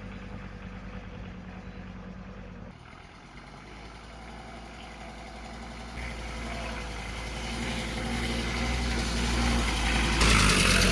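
Volkswagen T4 van's engine running at low revs, then growing steadily louder as the van drives up a dirt track towards the camera, loudest near the end.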